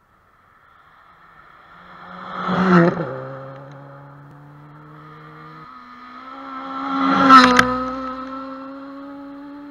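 Rally car engine on a gravel stage, revving hard and changing gear as it comes closer, in two loud surges about three and seven seconds in.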